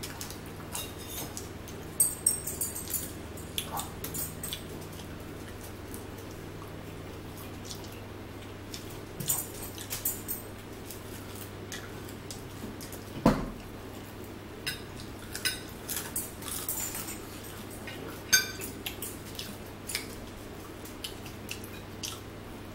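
Table-eating sounds: a fork and fingers clinking and tapping on plates in scattered light clicks, with one stronger knock about 13 seconds in, over a steady low hum.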